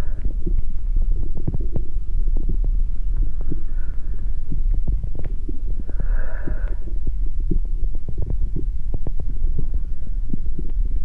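Heart sounds: a deep, continuous throbbing thick with irregular crackles and knocks. Two brief hissing swells rise above it, a faint one near four seconds in and a stronger one about six seconds in.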